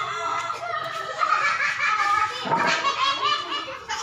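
People laughing and talking, with a quick run of repeated laughter pulses partway through.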